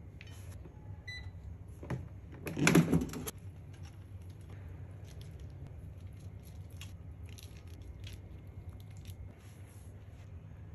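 Kitchen tongs handling chicken wings onto a plate: a sharp click about two seconds in, then a brief loud clatter, followed by light scattered clicks, over a steady low hum.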